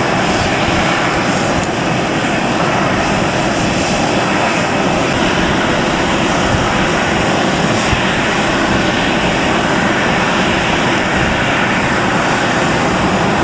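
Steady jet aircraft engine noise on an airport apron: an even, unchanging rush with a faint high whine in it.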